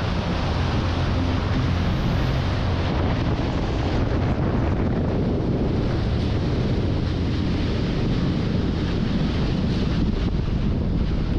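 Strong wind buffeting the microphone, with water rushing past the hulls and a low rumble from a power catamaran running at speed on open water.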